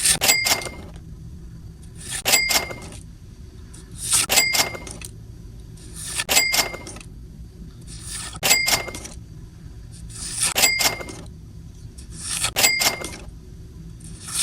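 A whoosh-and-ding sound effect repeating seven times, about every two seconds: each time a rising swish, then a quick double chime.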